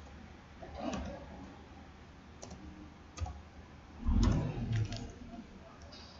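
Computer keyboard keystrokes typed slowly, a few separate clicks spaced a second or more apart. A heavier dull thump about four seconds in is the loudest sound.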